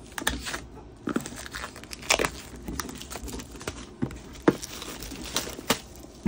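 Plastic shrink wrap crinkling and tearing as it is pulled off a cardboard jigsaw puzzle box, in an irregular run of sharp crackles.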